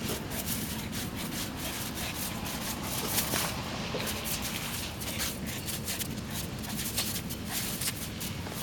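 Samoyed digging and nosing in a snowbank: irregular scraping and crunching of snow under its paws.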